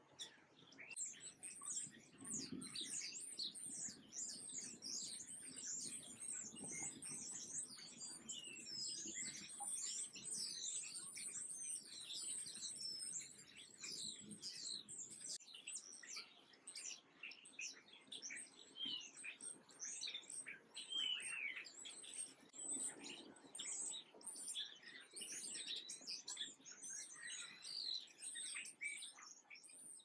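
A flock of house sparrows chirping continuously, with many short high chirps overlapping one another.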